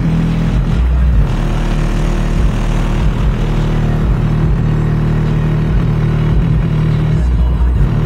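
Bass-heavy rap music played loudly through an Alpine Type R 12-inch car subwoofer in a transmission-line box, with deep bass notes dominating.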